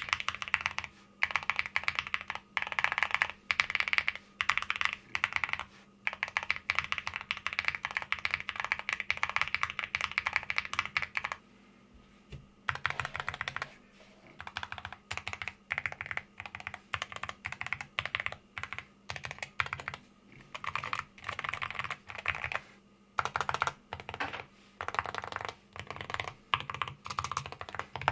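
Mechanical keyboard fitted with Cerakeys ceramic keycaps, typed on quickly in long runs of key clacks, with a brief pause about halfway through before the typing resumes. The sound is deep, typical of the thick, heavy ceramic caps.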